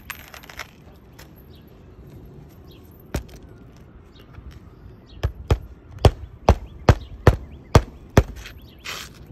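Hammer blows nailing down an asphalt roof shingle: a single strike about three seconds in, then a quick run of about eight blows over about three seconds.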